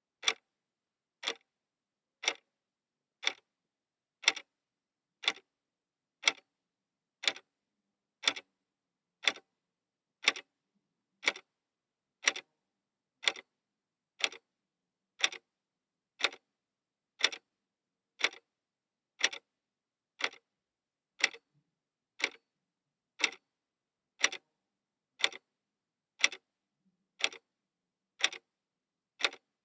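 Clockwork clock ticking steadily, one sharp tick a second, evenly spaced with silence between.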